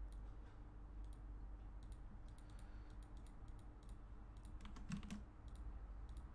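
Faint, irregular clicking of a computer keyboard and mouse, with a tighter, louder run of clicks about five seconds in, over a low steady hum.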